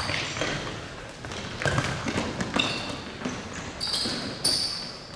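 Futsal match play on a sports-hall court: the ball being kicked and bouncing, with high squeaks from players' shoes on the floor, all echoing in the large hall.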